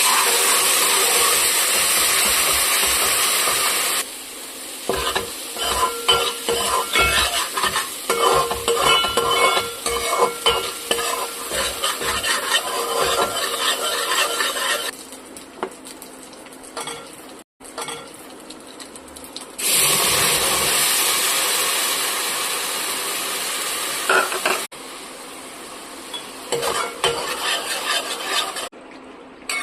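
Food sizzling in hot oil in a pan, alternating with stretches of a spoon stirring and scraping against the pan. The sizzle is loud and steady for the first few seconds and again a little past the middle, with quieter clicking and scraping in between, and changes come abruptly.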